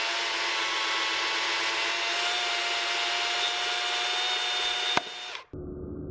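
Chainsaw running at full speed with a steady high whine. About five seconds in there is a sharp click and the saw sound cuts off abruptly, giving way to a lower, muffled steady hum.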